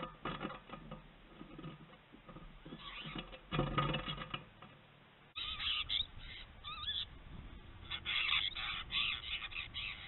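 A flock of apostlebirds calling with harsh, scratchy chatter. The calls are scattered at first and become louder and busier from about halfway through.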